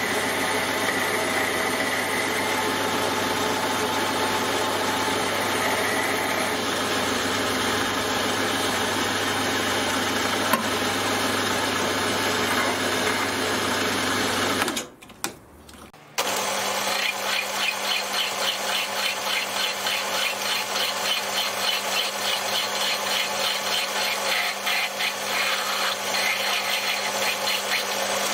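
Small metal lathe running, its motor and gearing humming steadily. After a brief break about halfway through, a hand file rasps against the spinning metal workpiece with a quick, regular pulsing over the lathe's hum.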